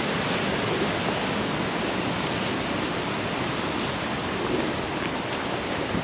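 Flowing stream water rushing steadily.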